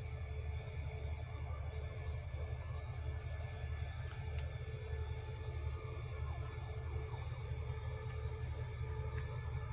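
Low, pulsing rumble of a diesel locomotive running down the track, with a steady high insect trill and short high chirps repeating every second or so over it.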